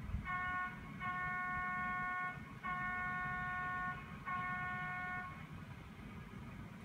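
A horn sounding four times on one steady pitch: a short blast, two long ones of over a second each, then a shorter one.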